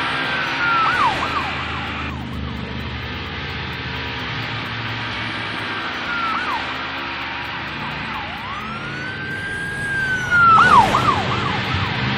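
Police car siren sounding in rising-and-falling glides: short swoops about a second in and again midway, then a long held rise near the end that drops away sharply in quick falling sweeps. A steady rushing noise runs underneath.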